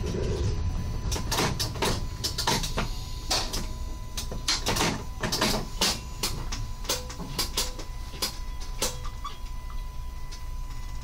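Cab of a SWEG NE81 railcar standing at a station platform: a steady low rumble and a faint steady tone, with a run of irregular sharp clicks and knocks from about a second in, fading out near the end.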